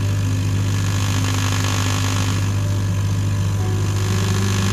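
AC TIG welding arc on aluminium, buzzing steadily: a strong low hum with a hiss above it. Its sound is the cue for holding the right gap between torch and workpiece.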